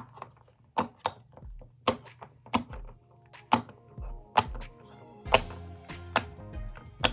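Silicone push-pop fidget toy (poppet) having its bubbles pressed, giving sharp single pops about once or twice a second, over background music.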